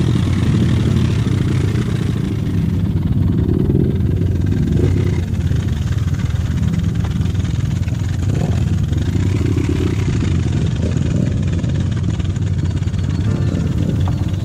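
Dirt bike engine running throughout, the revs swelling up and back a couple of times.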